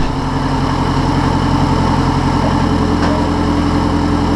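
Freshly built Mazdaspeed 3 2.3-litre turbocharged four-cylinder idling steadily on its initial startup.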